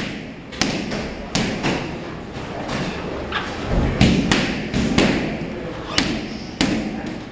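Kicks and punches smacking into Muay Thai pads: about ten sharp impacts at uneven intervals, some coming close together in pairs.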